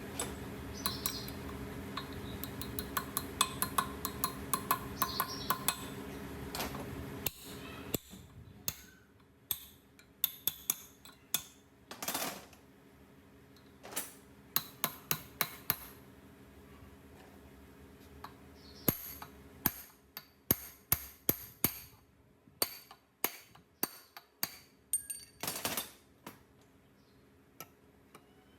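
Hand work on metal parts: repeated sharp metal taps and clinks from tools, in quick clusters. A steady machine hum runs under them for the first six or seven seconds, then stops.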